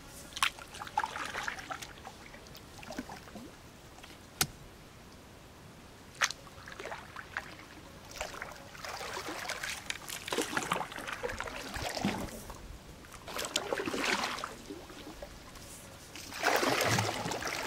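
A boat paddle working through river water: about five swishing, dripping strokes, with three sharp knocks of the paddle against the boat's side in the first six seconds or so.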